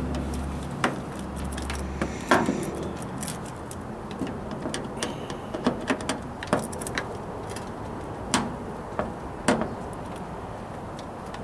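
Screwdriver and hands working among the metal cabinet, plastic parts and hoses of a front-load washer while taking out the inlet valve's Phillips screws: scattered sharp clicks and knocks. A low hum stops about two and a half seconds in.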